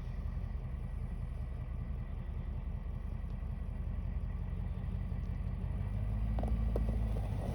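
Vehicle engine idling steadily with a low, even hum, a little stronger near the end, with a few faint clicks.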